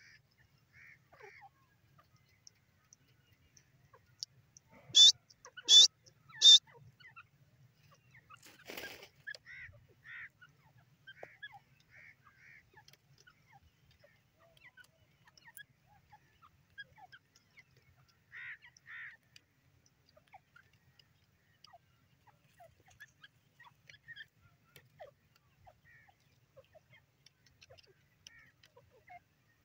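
Grey francolin calling: three loud, sharp notes in quick succession about five seconds in, with soft short chirps scattered throughout.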